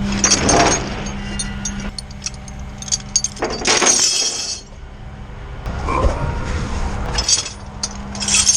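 Tow chains and metal hooks clanking and rattling in several separate bursts, with many sharp clinks, over a steady low hum.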